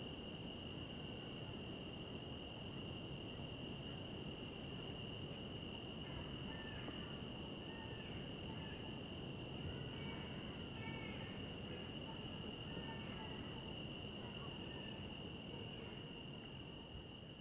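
Night insects: a continuous, steady high-pitched cricket trill, with a fainter, higher pulsing insect call above it. A few faint short chirps come and go in the middle.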